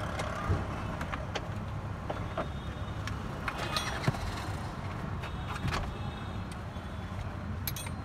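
Scattered clicks and clinks of a wrench and plastic pillar trim being worked on inside a car, over a steady low rumble.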